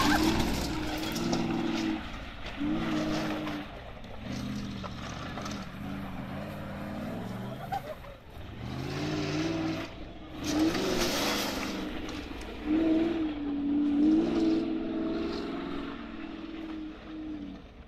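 A competition off-road 4x4's engine is being driven hard over rough ground. The engine note rises and falls again and again as the throttle is worked.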